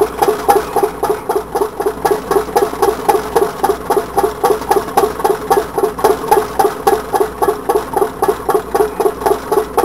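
Home-built tin can Stirling engine running steadily, a tinny knock ringing out on every revolution at about four to five a second. The builder puts the knock down to the displacer touching the bottom of the can.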